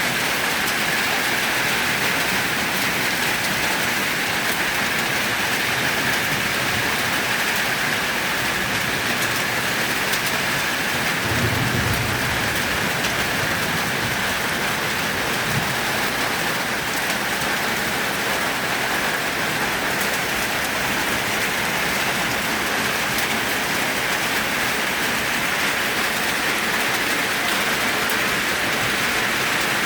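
Heavy rain falling steadily, an even hiss of drops with no break. About twelve seconds in there is a brief low rumble under it.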